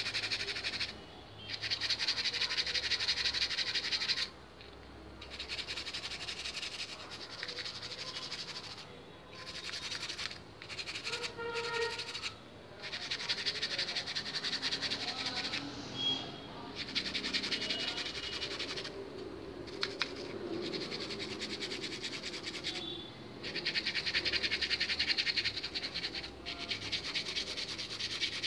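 A small brush scrubbing a water-damaged mobile phone circuit board, rapid rasping strokes in spells of a few seconds with short pauses between, cleaning corrosion off the board.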